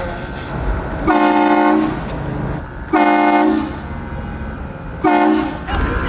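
Air train horn mounted on a car roof, blowing three short blasts about two seconds apart, each a loud chord of several held pitches lasting under a second.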